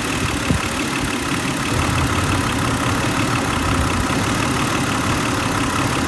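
2008 Hyundai Santa Fe's 2.7 L V6 idling with a hard misfire on cylinder 5, the idle now and then changing and stumbling when that cylinder fails to fire. The mechanic puts it down to a bad spark plug or spark leaking out of the coil boot.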